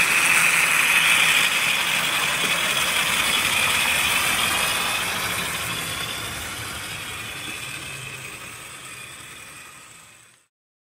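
Tri-ang TT scale Windsor Castle model steam locomotive running steadily around its track, its small electric motor and wheels making a continuous mechanical whirr. About four seconds in it begins to fade gradually, and it is gone just before the end.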